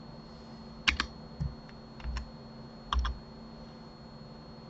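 Computer keyboard keystrokes and mouse clicks: about five short clicks, a couple of them in quick pairs, spaced roughly a second apart, over a faint steady hum.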